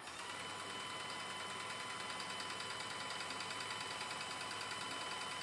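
Graco Magnum X17 airless paint sprayer starting up and running steadily on its test run after a pump rebuild: a steady whine with a fine rapid pulsing from the electric motor and piston pump.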